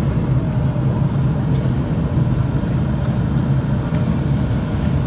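Steady low rumble of jet engines and airflow heard inside an airliner cabin during the descent on approach.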